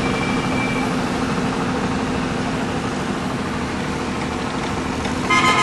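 A steady mechanical hum with a faint low drone, like engines or machinery running. Near the end, a sound of several high steady tones starts suddenly and holds.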